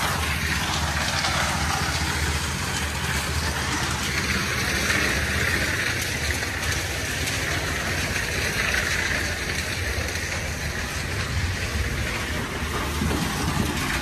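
One-bagger concrete mixer running on site: a steady low engine drone with a broad hiss over it.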